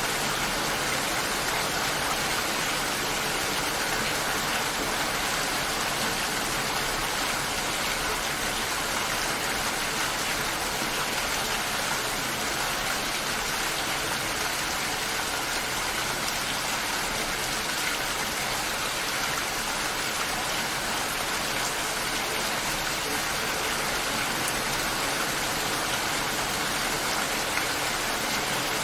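Steady rainfall, an even hiss of rain falling on surfaces without pause or change.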